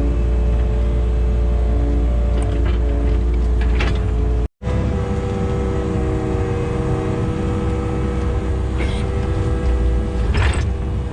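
Heavy-equipment diesel engine running steadily. It breaks off abruptly about four and a half seconds in and comes back with a somewhat different engine note. A couple of short sharp noises come near the end.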